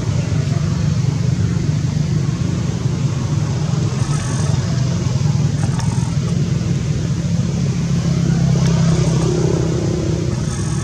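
Steady low rumble of a running engine, getting slightly louder near the end.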